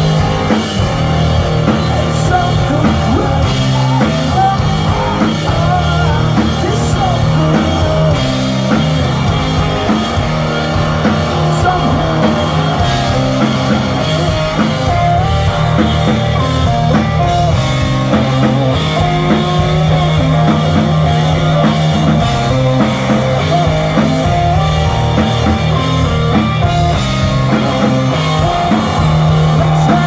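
Live rock band playing: electric guitars and a drum kit.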